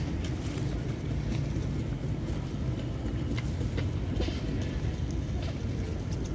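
A flock of racing pigeons feeding on seed, with many short pecking and wing-flutter clicks over a steady low rumble.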